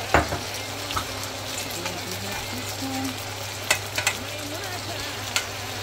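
Eggs, onions and red bell peppers frying in a skillet, a steady sizzle, with a few sharp knocks of a slotted spoon against the pan.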